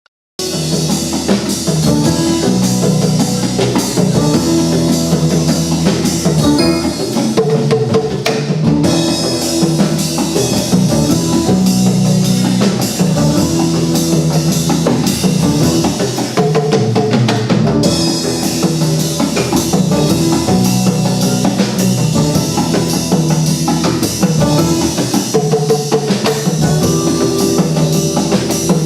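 Instrumental music with a drum kit and a repeating bass line keeping a steady beat, starting about half a second in.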